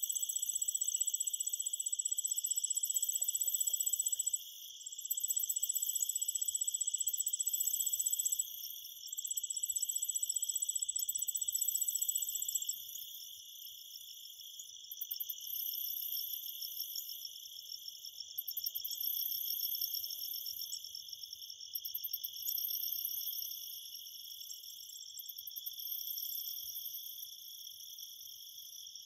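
Several crickets trilling at once in overlapping high-pitched bands. The loudest trill breaks off briefly about four and eight seconds in and stops about thirteen seconds in, leaving a quieter, steady chorus.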